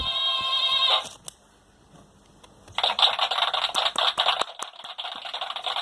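Electronic sound effects from a toy sound-effects button box's small speaker. A tonal jingle ends about a second in, then after a short pause a dense crackling, rattling effect starts.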